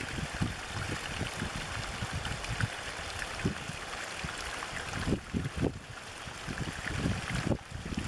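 Small stream of water pouring over a rocky bank into a shallow pool, running steadily with a constant rush and many small splashes.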